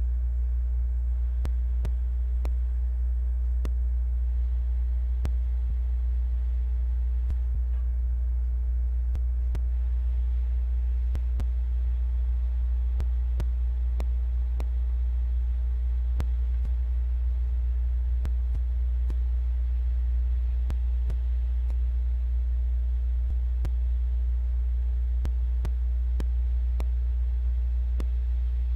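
Hot air rework station running steadily, a strong even low hum from its blower as it heats the connector to reflow the solder, with a few faint clicks.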